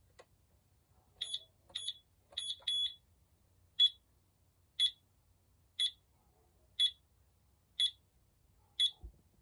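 Home alarm keypad beeping in a high pitch: a few quick irregular beeps as keys are pressed, then from about four seconds in a steady beep once a second, the countdown that follows arming the alarm.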